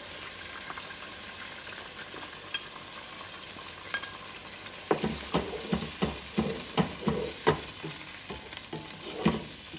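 Chicken and mixed vegetables sizzling in a frying pan under freshly poured tomato pasta sauce. From about five seconds in, a wooden spatula stirs and knocks against the pan in a quick run of knocks and scrapes.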